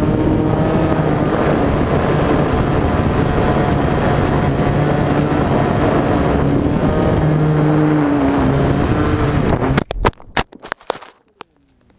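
Fox 35 two-stroke glow engine with muffler running steadily at flying speed in a Goldberg Buster control-line model, heard from a camera on the wing along with wind rush; its pitch dips slightly twice. Nearly ten seconds in the engine cuts off as the plane hits the grass in a crash: a quick run of sharp thumps and clatters lasting about a second.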